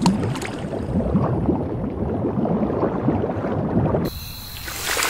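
Bubbling, gurgling underwater sound effect, a dense crackle of small bubbles. About four seconds in it gives way to a hissing whoosh with a thin high tone.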